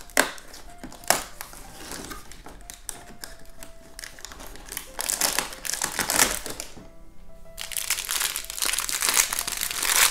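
Cardboard advent calendar door being pried open with a couple of sharp clicks, then a plastic blind bag crinkling as it is pulled out and handled, over soft background music.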